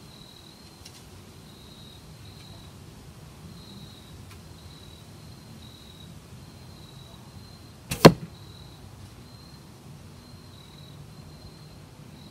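An arrow shot from a Bearpaw Bodnik Crow recurve bow strikes a layered foam block target once, with a sharp thwack about eight seconds in.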